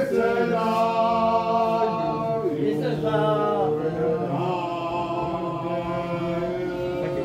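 Singing with long held notes that slide from one pitch to the next, with little or no instrumental backing.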